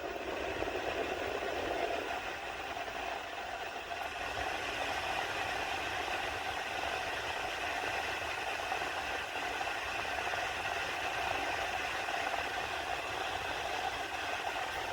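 Honeywell HTF210B QuietSet personal table fan running: a steady whir with faint steady tones and a low rumble underneath.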